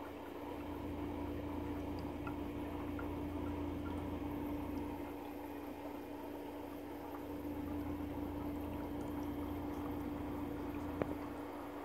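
Steady low hum with a constant mid-pitched tone under it, and a single sharp click about eleven seconds in.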